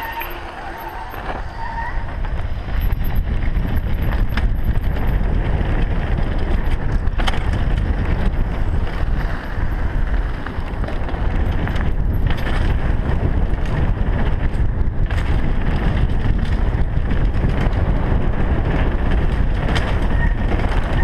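Mountain bike descending a dirt trail at speed: wind buffeting the helmet-mounted microphone over tyres rolling on dirt and gravel, with knocks and rattles from the bike. It gets louder about two seconds in.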